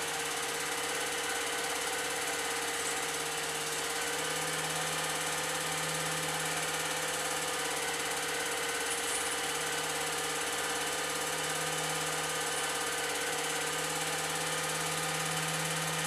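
Old 8mm film projector running steadily: an even motor hum under the constant mechanical chatter of the film-advance mechanism.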